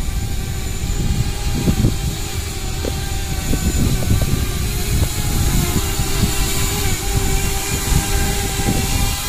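7-inch FPV quadcopter's motors and propellers whining steadily as it flies low, the pitch wavering slightly, over a gusty low rumble.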